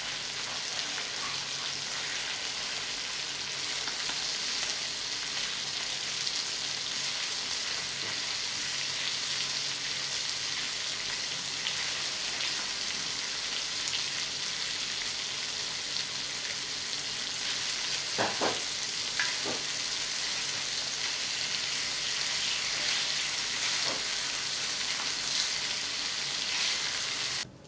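Fish frying in a little oil on a flat dosa tawa, a steady sizzle. There are a couple of short knocks about two-thirds of the way through, and the sizzle cuts off abruptly near the end.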